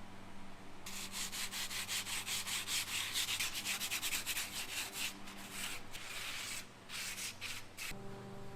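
Hand sanding or rubbing: rapid back-and-forth strokes, about five a second, starting about a second in, with a brief pause near the end before they stop.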